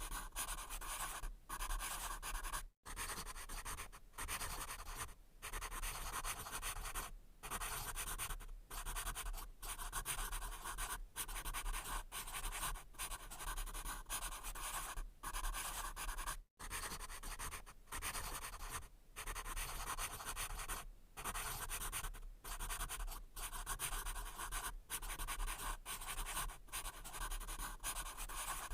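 Pencil writing on paper: a continuous dry scratching, broken by short pauses every second or two as the pencil lifts between strokes.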